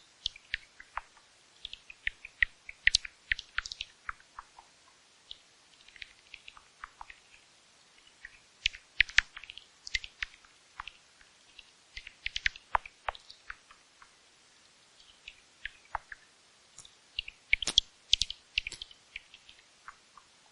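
Bat chittering: bursts of rapid, high-pitched clicks and short squeaks, some falling in pitch, in clusters every few seconds, the loudest cluster near the end.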